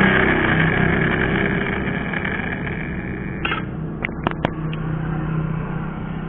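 Angle grinder coasting down after being switched off, its noise fading steadily. About halfway through come a few light clicks as pieces of cut square metal tube are set against each other.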